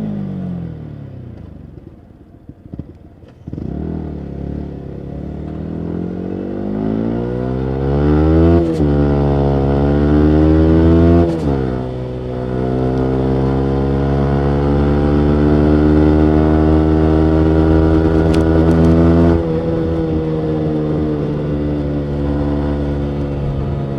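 Yamaha MT-125's single-cylinder engine through a full Akrapovic exhaust: it winds down at first, then accelerates through two quick gear changes and settles into a steady cruise, easing off slightly near the end.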